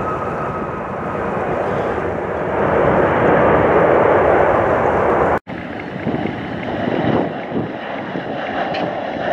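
Jet airliner engine noise from an American Airlines twin-jet rolling down the runway, growing louder about two and a half seconds in, with wind on the microphone. It cuts off abruptly about five seconds in and gives way to the quieter, gusty noise of a second airliner's jets on approach.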